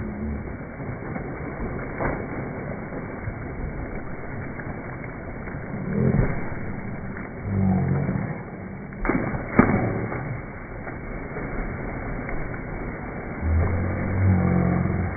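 People jumping one after another into a swimming pool: several separate splashes of bodies hitting the water over a steady rushing background.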